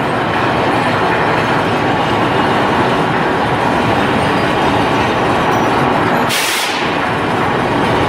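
Rail-mounted electric furnace charge feeder cart working on its track: a steady, loud mechanical noise, with a brief sharp hiss about six and a half seconds in.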